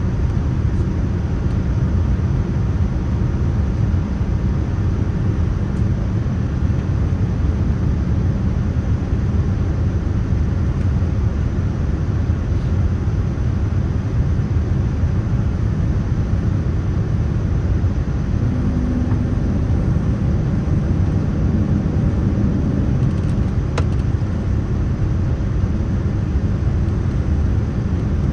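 Steady low rumble of jet airliner noise, holding level without rising or falling.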